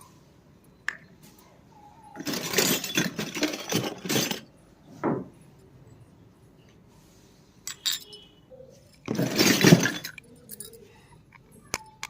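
Small plastic toy kitchen pieces being handled, clinking and clattering: two longer bursts of rattling and rustling, the first about two seconds in and the second near the end, with single light clicks in between.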